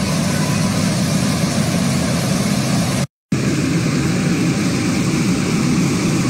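Steady, loud rushing roar of an overflowing river's floodwater, picked up by a phone microphone. It cuts out for a moment about three seconds in and then carries on.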